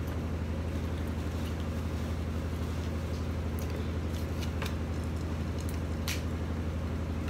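Steady low hum, like a household appliance running, with a few faint clicks and light handling sounds from a glass and food being picked up and set down.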